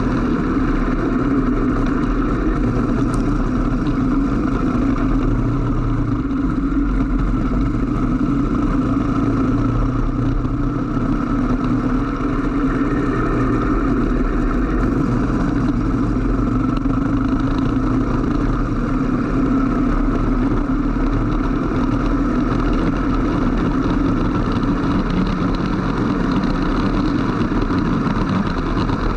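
Racing go-kart engine running at speed right behind the camera, one steady note with only small changes in pitch. Over it is a constant hiss of wind and spray thrown up from a wet track.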